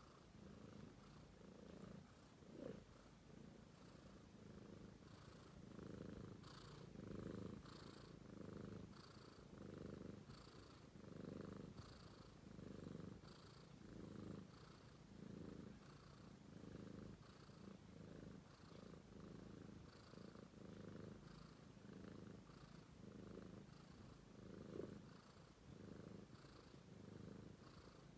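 A British Shorthair kitten purring nonstop while it dozes and has its head stroked, a steady low buzz that swells and fades with each breath. Twice a brief louder blip stands out over the purr.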